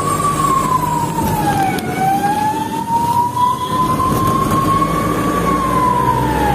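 Ambulance siren in a slow wail, heard from inside the ambulance over its engine and road noise. The pitch falls over the first two seconds, climbs slowly for about three, then falls again near the end.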